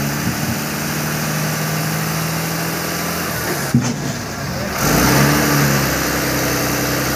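Heavy truck diesel engine idling steadily. A sharp click comes a little under four seconds in, and about five seconds in the engine revs up briefly, then settles back to a steady run.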